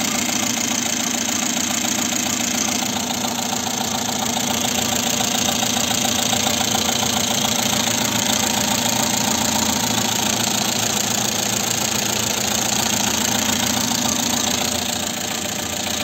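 Renault petrol engine, of the type fitted to the Super 5, R9, R11 and R19, idling steadily, heard up close in the engine bay.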